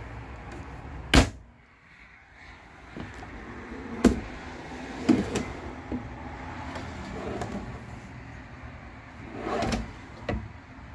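Motorhome kitchen cabinet door and drawers being shut and pulled open: a sharp knock about a second in, several lighter knocks from about four seconds on, and a drawer rolling on its metal slides near the end.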